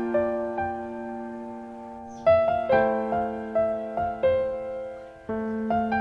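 Background piano music: gentle notes and chords, each fading out, held and sparse at first, then struck about every half second from about two seconds in.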